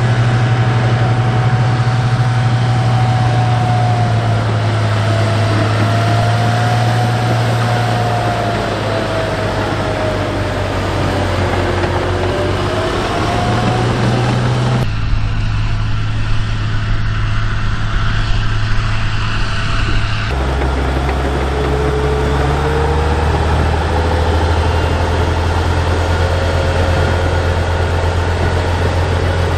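M8 High-Speed Tractor's Continental AOS-895-3 six-cylinder air-cooled petrol engine running as the tracked vehicle drives, a steady low engine note with a higher whine that wavers up and down. The sound changes abruptly about halfway through and again a few seconds later.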